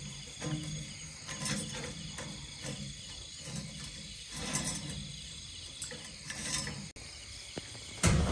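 Insects trilling steadily, with repeated dull knocks and rustles and a louder knock near the end.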